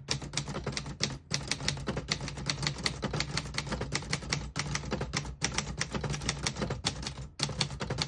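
1950 Underwood Universal manual portable typewriter being typed on: rapid key strikes, several a second, with a few short pauses.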